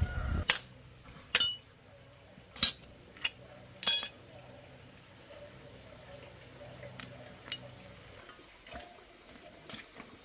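Metal engine parts and tools from a dismantled Cub engine clinking as they are picked up and set down on a concrete floor. There are about five sharp clinks in the first four seconds, then only a few faint ticks.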